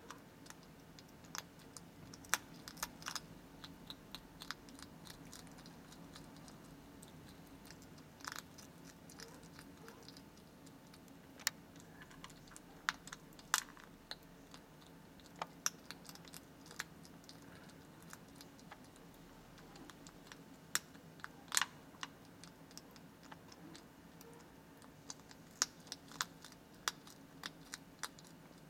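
Hedgehog crunching dry cat kibble from a plastic bowl: irregular sharp crunches and clicks, some single and some in quick clusters.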